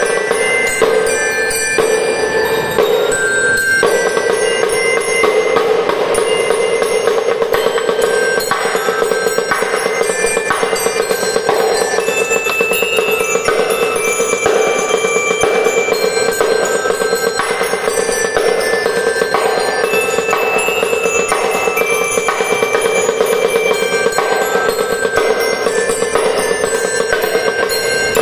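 Snare drum played with sticks in fast, continuous rolls and patterns, over drum-and-lyre band music whose bell lyre rings out a melody in bright, bell-like notes.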